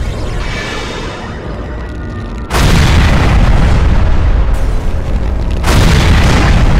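Explosion sound effects from an animated battle: a sudden deep boom about two and a half seconds in, with a heavy rumble that runs on, and a second boom near the end. Background music plays under them.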